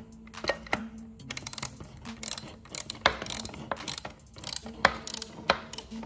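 Ratcheting hand tool clicking in short irregular runs as a screw is backed out.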